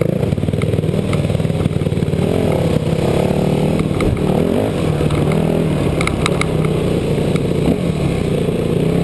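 Yamaha WR250F dirt bike's four-stroke single-cylinder engine riding a rocky trail, its revs rising and falling as the throttle opens and closes. A quick run of sharp clicks sounds about six seconds in.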